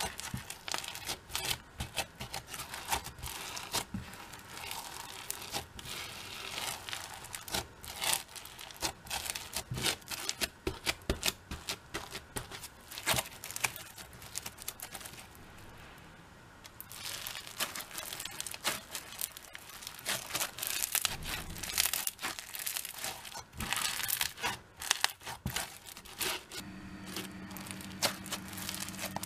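Crunchy slime loaded with Bingsu beads being kneaded and squeezed by hand: a dense crackling and popping of the tiny plastic beads, easing off briefly a little past the middle. A low steady hum joins near the end.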